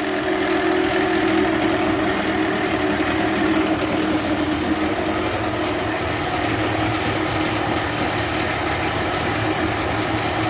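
Evinrude 25 two-stroke outboard motor idling steadily.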